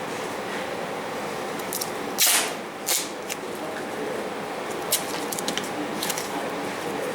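Two short hisses from an aerosol can of 3M Super 77 spray adhesive about two seconds in, the first the longer. They come over a steady background hum, with a few small clicks and rustles afterwards.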